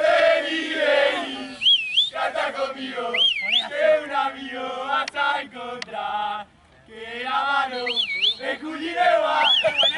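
A group of men chanting together in celebration, with someone whistling a shrill rising-and-falling whistle four times over the chant. The chant breaks off briefly a little past the middle.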